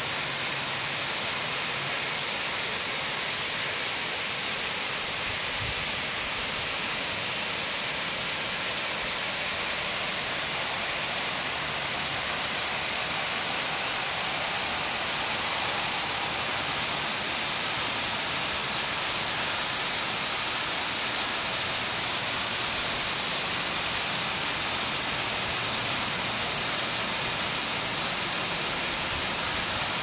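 Waterfall cascading down a steep rock face: a steady, unbroken rushing of falling water, strongest in the hiss.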